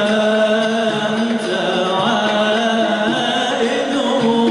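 Men singing a Moroccan madih devotional chant, with long held, melismatic notes over a steady low note.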